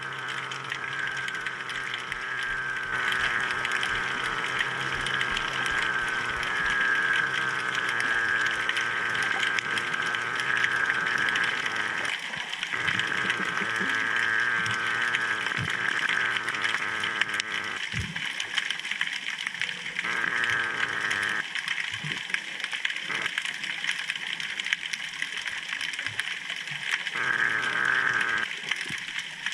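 Underwater noise picked up by a GoPro camera in its housing on the bottom beside a pier piling: a steady crackling hiss with a wavering high whine. The whine drops out about twelve seconds in and again several times near the end, and a few dull knocks come through.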